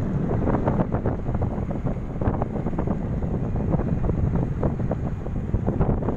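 Wind buffeting the phone's microphone while riding a scooter along a road: a loud, steady low rumble with constant flutter.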